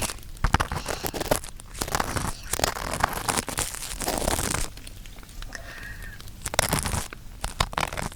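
Close-up rustling, scraping and crinkling right against the ears of a 3Dio binaural microphone, in irregular clusters of scratchy noise and small clicks.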